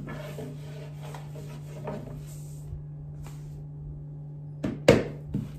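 Thin baklava dough being rolled out on a long thin rolling pin over a floured wooden board: soft rustling and rubbing strokes, then a few sharp knocks near the end, the loudest about five seconds in. A steady low hum runs underneath.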